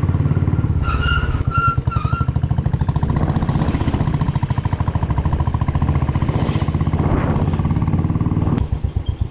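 Royal Enfield motorcycle engine running steadily under way, with its even low pulsing beat. About a second in, a horn gives three short toots; near the end the engine sound drops off suddenly.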